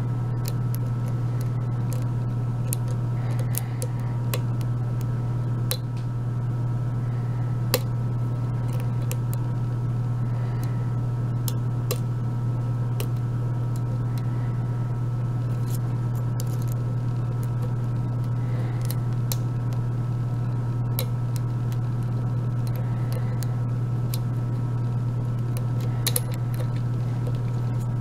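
Scattered small, irregular clicks of a hook pick working the pins of a five-pin Vachette euro cylinder during single-pin picking, over a steady low hum.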